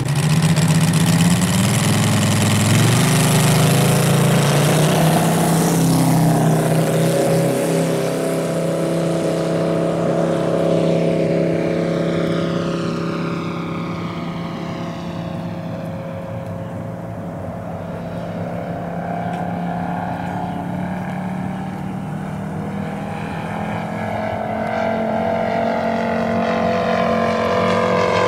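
The MOKI 250cc five-cylinder radial engine of a quarter-scale F4U Corsair model aircraft opens up for takeoff, rising in pitch about two seconds in. It then fades with a sweeping, phasing tone as the plane climbs away and grows louder again near the end as it comes back around.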